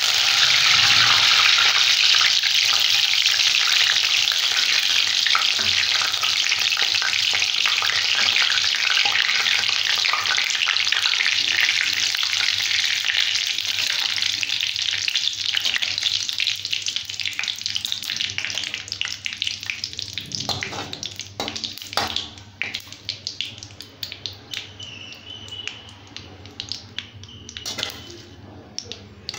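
Curry leaves frying in hot oil in a metal kadai: a loud sizzling hiss from the moment they go in, thinning out over the second half into scattered crackles as the leaves crisp. A metal slotted spatula stirs and scrapes against the pan a few times near the end.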